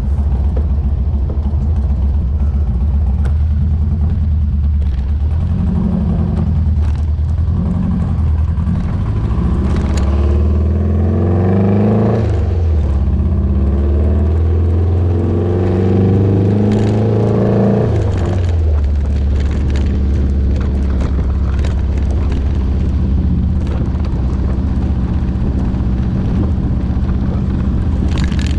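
Buggy Kadron's air-cooled Volkswagen 1600 flat-four engine running on the move. It pulls up in pitch from about ten seconds in, dips briefly near twelve seconds as a gear goes in, climbs again, and drops back near eighteen seconds, then holds a steady cruise.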